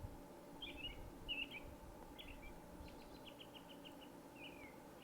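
Faint songbird chirps: a few short notes, then a quick run of about seven notes in the middle and a falling note near the end, over a faint steady hum.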